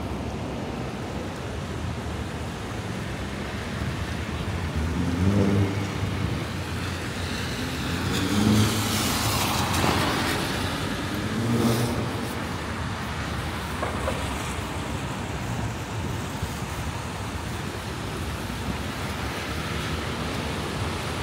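City street traffic on wet pavement: a steady rush of passing vehicles, with one vehicle's tyre hiss swelling and fading about halfway through.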